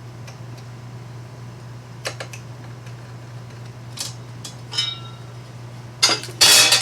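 Metal drawer slide rails and hand tools being handled: a few light clicks and a short ringing metal clink, then a loud metallic clatter near the end. A steady low hum runs underneath.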